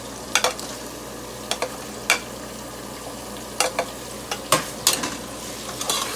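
Vegetables frying with a steady sizzle in a stainless steel pot as sliced tomatoes are scraped in off a plate with a metal spoon. The spoon clinks sharply against the plate and pot about ten times, and near the end the pot is stirred.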